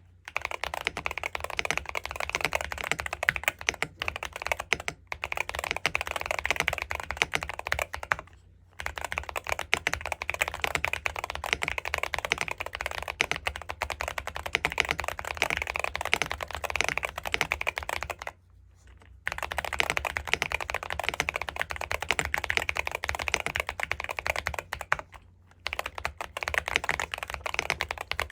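Fast, continuous typing on a Zuoya GMK67 mechanical keyboard fitted with MMD Holy Panda V2 55g tactile switches, with brief pauses about 8, 18 and 25 seconds in.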